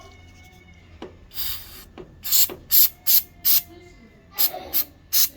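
Aerosol can of anti-rust penetrating spray being sprayed onto rusted screws in short hissing bursts: one longer spray about a second in, then a quick string of short squirts.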